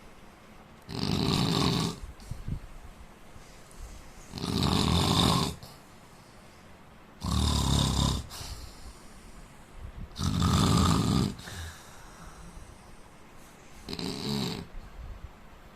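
A man snoring in his sleep: five loud snores, about one every three seconds, each lasting about a second, with much quieter breathing between them. The last snore is shorter and weaker.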